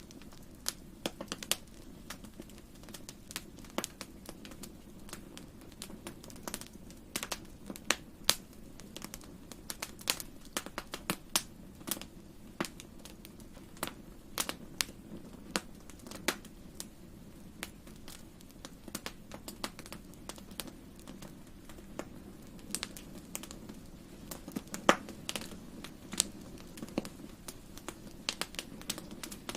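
Wood fire in a fireplace crackling, with frequent, irregular sharp pops over a steady low rumble.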